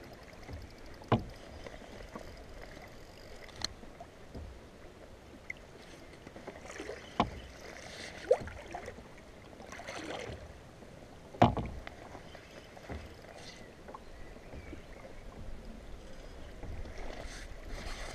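Choppy water lapping against a kayak's hull and outrigger pontoons, with a handful of sharp knocks, the loudest about two-thirds of the way through.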